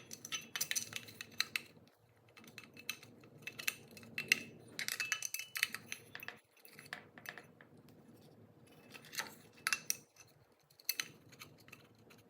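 Irregular clicks, taps and scrapes of a quartz clock movement being handled and pressed against the clock body, its parts knocking as it fails to sit flat.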